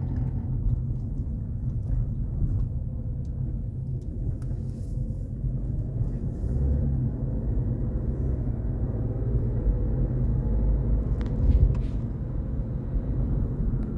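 Car on the move with steady low road and tyre rumble, and a short cluster of sharp clicks and a knock about eleven seconds in: the squeaky crackle that the owner traces to the right front suspension.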